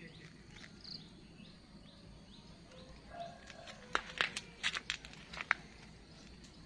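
Scissors snipping through amaranth stems, several sharp clicks in a row between about four and five and a half seconds in, with the leaves rustling as the bunch is handled.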